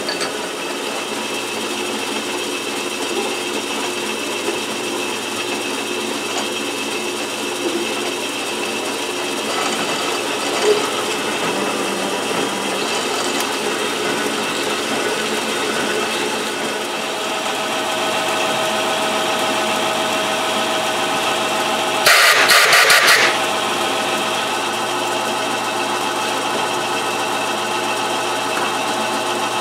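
Metal lathe running under cut, drilling out the bore of a metal pulley with a large drill in the tailstock: a steady machine hum and whine from the motor and headstock gearing. About three-quarters of the way through comes a loud, noisy burst lasting about a second.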